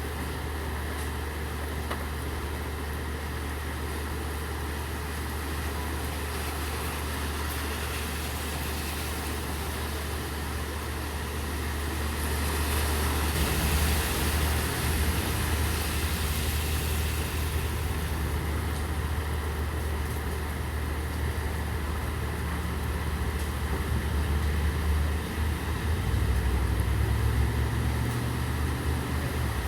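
Steady rain with the low, steady hum of a vehicle engine idling. About halfway through, a hiss swells and fades as a car passes through water on the wet street.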